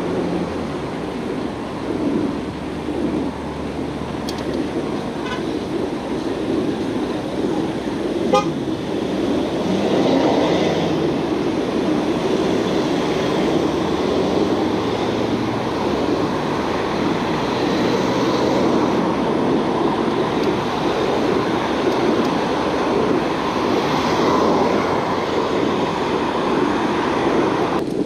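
Road traffic passing close by, heard from a bicycle riding in the lane beside it: a steady rush of car and tyre noise, with one short, sharp sound about eight seconds in.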